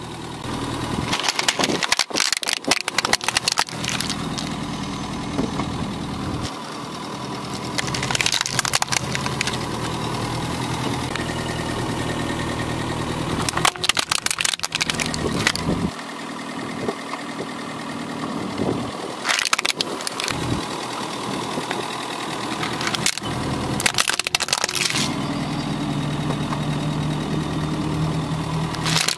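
A car's tyre rolling slowly over hard plastic toy cars, one after another, each crush a quick cluster of sharp cracks and snaps of breaking plastic. This happens about six times, with the car's engine idling steadily in between.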